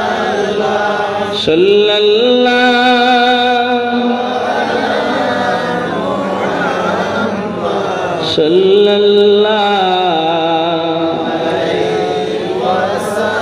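A man chanting the salawat (durood) through a microphone and loudspeakers, drawing it out in long wavering notes. A new phrase begins about a second and a half in and another about eight seconds in.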